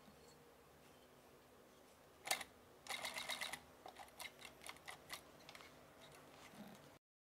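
Industrial post-bed sewing machine stitching leather: a single click, then a short fast run of stitches, then slower separate stitch clicks, about three a second.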